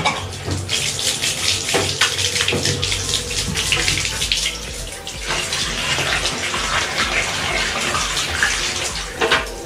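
Tap water from a shower hose running through a gas water heater's heat exchanger and splashing out into a bathtub, with irregular splashes, as the exchanger is rinsed clean of the descaling acid.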